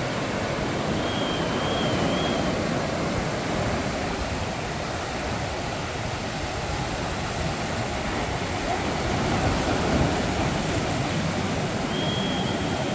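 Ocean surf breaking and washing up a sandy beach: a steady rush of water with a deep rumble underneath, swelling a little about ten seconds in.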